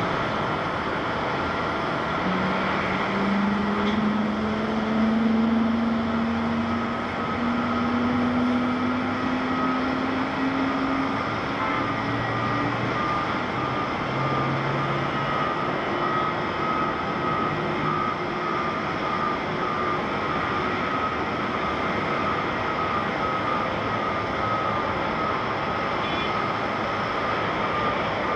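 Airbus A350-900 airliner climbing away after takeoff, its Rolls-Royce Trent XWB turbofans heard as a steady, distant jet rumble with a hiss. A few seconds in, a low hum rises slowly in pitch for about ten seconds, and a thin steady whine runs through the second half.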